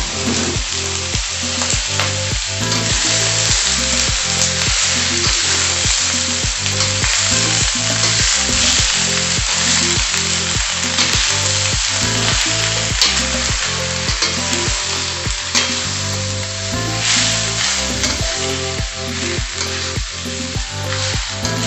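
Greens and sausage sizzling loudly as they are stir-fried in a stainless steel wok, a spatula turning them over. A steady low beat runs underneath.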